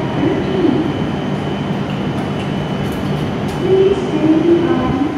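Steady hum of a stationary E7 series shinkansen train standing at the platform, with a constant high-pitched whine. A voice-like pitched sound rises over it near the end.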